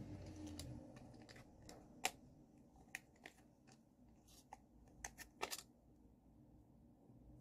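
Near silence broken by a few small handling clicks and rustles from hands working in hair. The sharpest click comes about two seconds in, and there is a quick cluster of three a little after five seconds.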